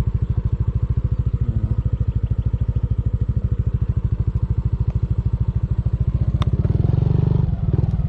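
Motorcycle engine running at a steady low speed with an even, rapid putter. It gets louder for about a second near the end, then drops back.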